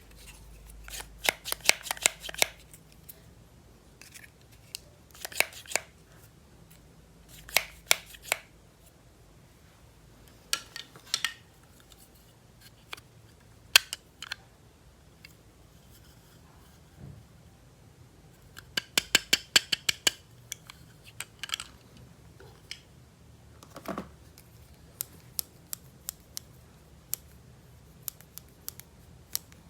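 Scissors snipping through toy packaging in short runs of quick, sharp clicks, each run a few seconds apart.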